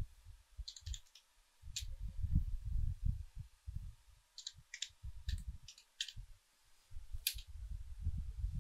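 Slow typing on a computer keyboard: about a dozen separate key clicks spread unevenly over several seconds, a few in quick pairs, over a low, uneven rumble.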